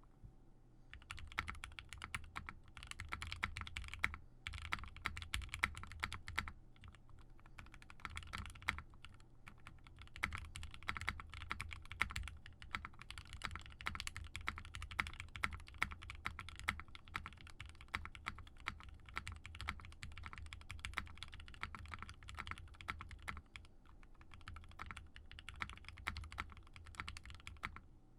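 Typing on a TGR x Singa Unikorn mechanical keyboard with 55 g Gateron Ink switches lubed with Krytox 205g0, on a polycarbonate plate. Fast, continuous keystrokes start about a second in, with a few brief pauses.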